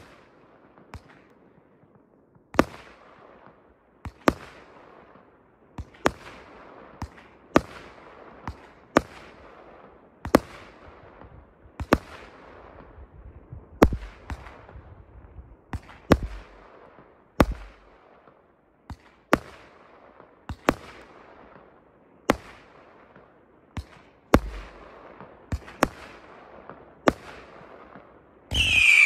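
Multi-shot firework cake of 20–30 mm tubes firing single shots roughly every one and a half to two seconds, each a sharp bang followed by a fading crackle from the burst. Near the end a loud whistle sets in.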